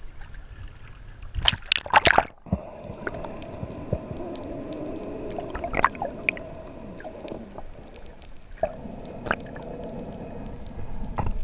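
Water splashing as a spearfisher duck-dives from the surface, then the muffled underwater sound heard by a submerged camera: a steady low hum with faint held tones and scattered small clicks. Splashing or bubbling comes again at the very end.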